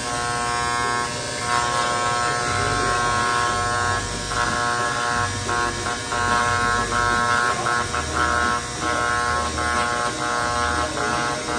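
Handheld electric engraving pen buzzing as it cuts a name into a plate on a plaque. The buzz swells and drops out briefly every second or so as the tip is pressed and lifted.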